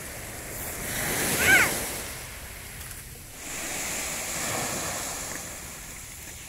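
Small sea waves washing up on a sandy shore, a steady wash that grows fuller from about three and a half seconds in. About a second and a half in, a brief high-pitched cry rises and falls over it; it is the loudest sound.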